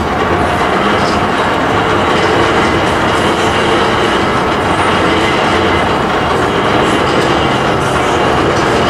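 Train cars rolling past steadily on the rails.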